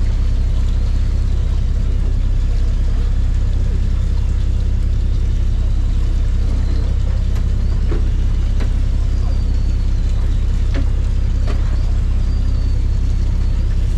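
Charter fishing boat's engine running with a steady low drone.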